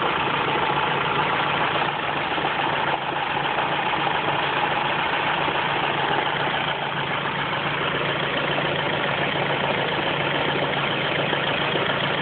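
Ford Focus engine idling steadily, carrying the intermittent knock that the owner places in the top end, ticking at top-end speed.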